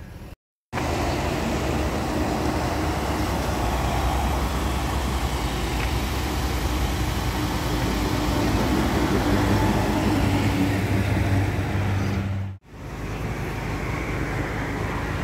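Steady motor-vehicle rumble with a low engine hum and road or traffic noise. It cuts off suddenly about three-quarters of the way through and is followed by a similar, slightly quieter steady rumble.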